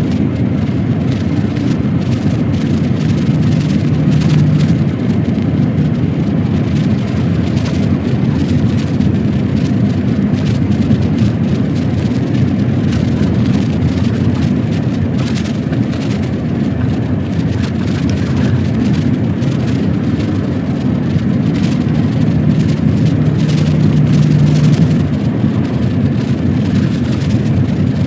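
Semi-truck driving on a country road: the diesel engine running steadily under tyre and road noise, with a low engine hum standing out for the first few seconds and again about three-quarters of the way through.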